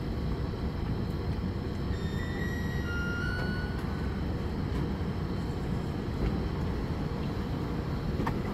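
NJ Transit Comet V commuter train standing at the platform, its equipment giving a steady low rumble. About two seconds in, a two-note falling chime sounds, typical of a train's door warning.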